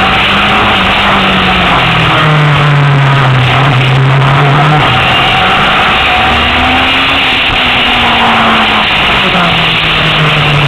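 Honda CBR1000RR's inline-four engine at speed on a circuit, its pitch swelling up and falling back twice as the throttle is worked through the corners, under a loud rush of wind noise.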